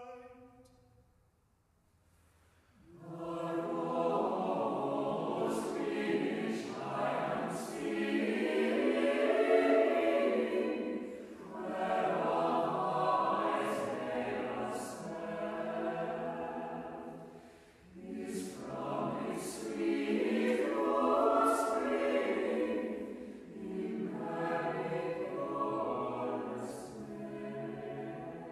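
Unaccompanied mixed choir singing. After a brief pause, the choir comes in about three seconds in and sings in long phrases that swell and ease off, with crisp sung s-sounds.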